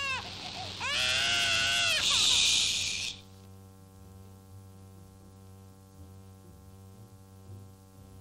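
A cartoon baby screaming and wailing: a short cry at the start, then a longer, harsher wail of about two seconds that breaks off about three seconds in.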